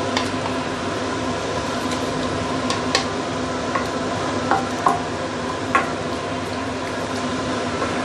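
A wooden spatula stirring and pressing egg noodles into boiling broth in a stainless-steel wok. The broth bubbles and sizzles steadily, and the spatula scrapes and knocks against the metal several times.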